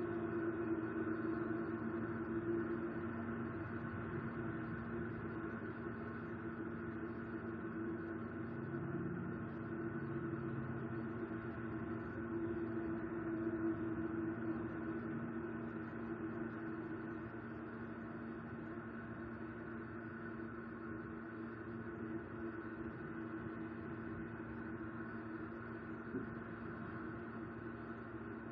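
A steady droning hum of several held tones, unchanging throughout.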